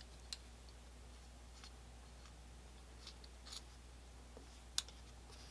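Faint, scattered small metal clicks and scrapes of a screwdriver backing out the hammer pivot screw of a Colt 1860 Army revolver, over quiet room tone; the sharpest click comes near the end.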